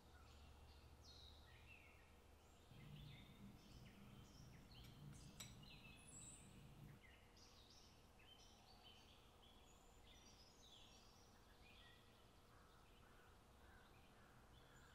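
Faint birdsong: many short chirps from several small birds, heard over a low background rumble that swells from about three to seven seconds in.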